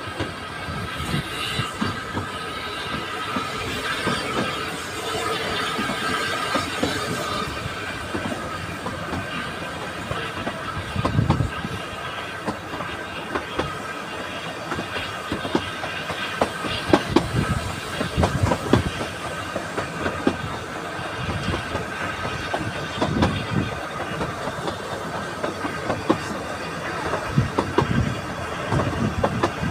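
Narrow-gauge steam train running, heard from a carriage window. The wheels clack over rail joints in irregular clusters over a steady running rumble, with a faint high wheel squeal in the first several seconds as it pulls away.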